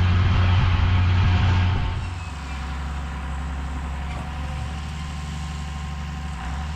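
John Deere 7510 tractor's diesel engine running steadily under load, then throttled down about two seconds in to a quieter, lower drone.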